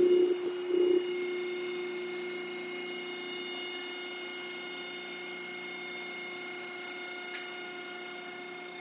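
A machine's steady hum at one constant pitch, slowly getting quieter, with two short louder sounds in the first second.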